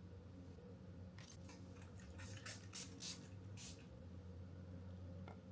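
A few faint, short brushing sounds over a low steady hum, typical of lotion being rubbed onto skin at close range.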